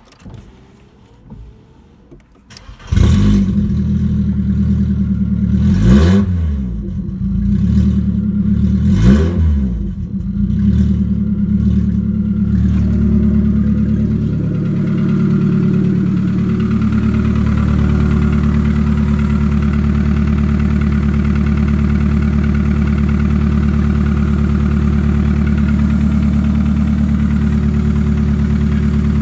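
Volkswagen Golf IV 1.4 16V AKQ four-cylinder petrol engine starting about three seconds in. It is revved twice, the pitch rising and falling each time, then settles into a steady, even idle.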